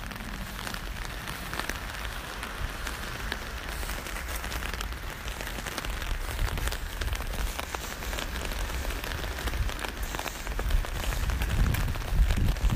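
Rain falling on an umbrella overhead: a steady patter of many small drop ticks. Near the end a low wind rumble on the microphone comes up.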